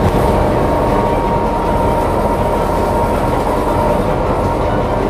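Steady rumbling drone of a boat's engine under way, mixed with water rushing past the hull, with a faint steady whine over the rumble.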